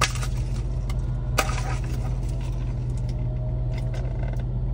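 Steady low hum of a car idling, heard inside the cabin. Two sharp clicks, one right at the start and one about a second and a half in, come from a straw being jabbed and stirred in a plastic drink cup.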